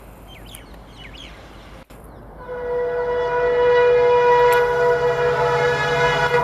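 Birds chirp briefly, then about two seconds in an approaching train's locomotive horn starts sounding one long, steady blast that keeps getting louder, over the rising rumble of the oncoming train.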